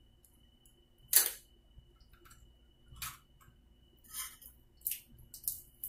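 Sharp metallic clinks and small knocks of a chrome flushometer flush tube and its coupling nuts as the tube is worked loose and pulled off the toilet spud. The loudest clink comes a little over a second in, followed by several lighter ones.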